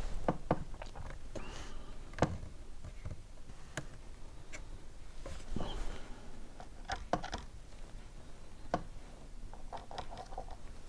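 Light, irregular clicks and small taps of fingers handling and pressing a thin wooden moulding strip against a wooden model ship hull.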